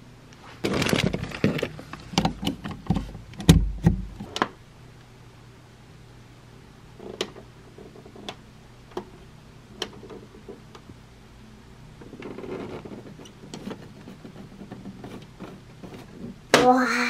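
Clicks, knocks and a couple of low thumps from handling a desktop printer and its cables, followed by a few sparse, lighter clicks of its buttons being pressed. Near the end a louder, sustained wavering sound starts.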